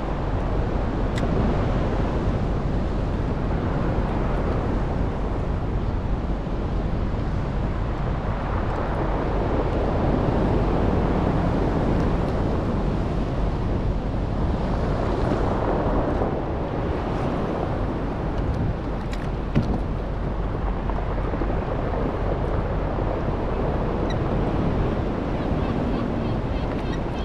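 Wind on the microphone and choppy sea washing around a kayak, with surf breaking on a rocky shore. One brief knock about two-thirds of the way through.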